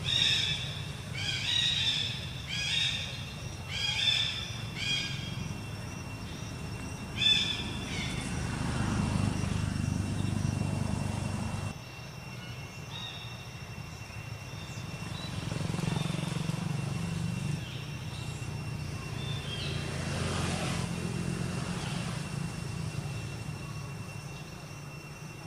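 Baby long-tailed macaque squealing: a series of short, high-pitched cries, about one a second through the first seven seconds, with a few fainter calls later. A low rumble in the middle of the stretch sounds like a passing motor vehicle.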